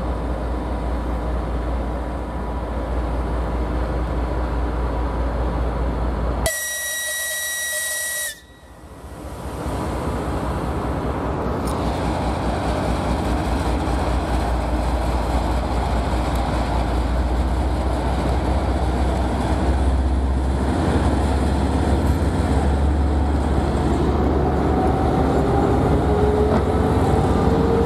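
TEP70BS diesel locomotive's engine running steadily, then a shrill locomotive whistle sounding for about two seconds. After a sudden break, a 2TE116UD diesel freight locomotive's engines grow steadily louder as it approaches and passes, rising in pitch near the end.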